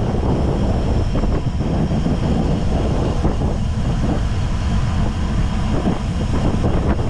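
Steady wind noise on the microphone of a camera travelling on a road bicycle, a loud low rumble that does not let up.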